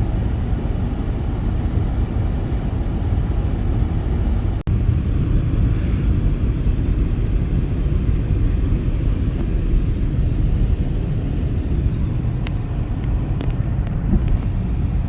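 Loud, steady low rumble of outdoor noise, broken by a brief dropout about five seconds in, with a few faint clicks near the end.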